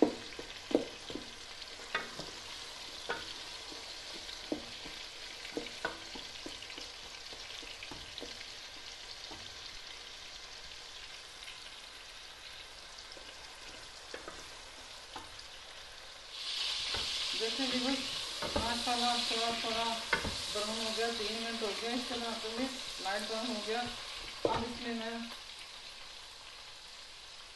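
Sliced onions frying in olive oil in a stainless steel pot, a steady sizzle with scattered clicks and scrapes of a wooden spoon stirring them against the metal. About two-thirds of the way through, the sizzle grows louder and brighter for several seconds, then settles back.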